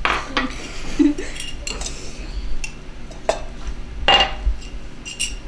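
Kitchen utensils and dishes clinking and knocking against a mixing bowl while meatloaf ingredients are added, a few scattered knocks with one louder ringing clink about four seconds in.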